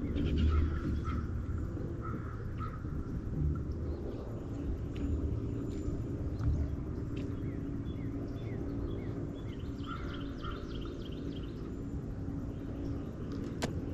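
Steady low rumble with scattered short bird chirps, and a single click near the end.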